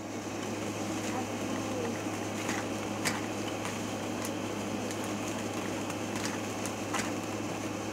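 Steady room hum with a few faint, short clicks scattered through it.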